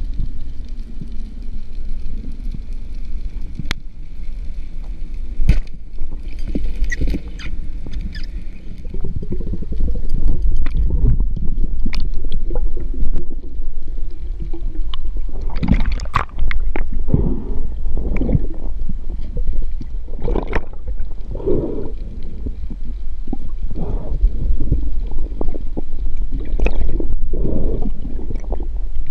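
Underwater sound picked up by a camera in its housing during a spearfishing dive. A steady low rumble of water runs under gurgling air bubbles, with a few sharp clicks in the first half. From about halfway on, rushes of bubbles come louder and more often.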